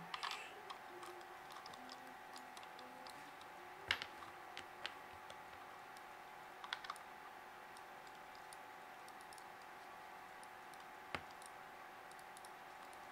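A few sharp, sparse clicks and taps of the Logitech G502 gaming mouse's plastic parts being handled, over a steady faint hum.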